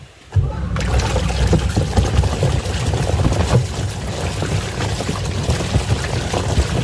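Water splashing and churning in a washing machine tub. It starts abruptly about half a second in and continues with a steady low rumble and many small clicks and knocks.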